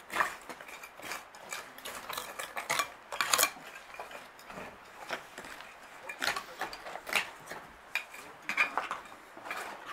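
Metal hand trowels scraping and clinking against soil and stones as excavators dig a trench, in irregular short scrapes and clicks.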